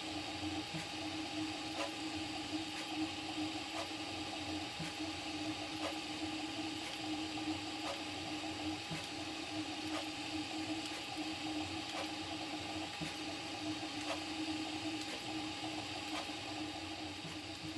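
Prusa MK4 3D printer running a print at 90 mm/s: a steady hum and whir from its motors and fans, with a faint tick about once a second.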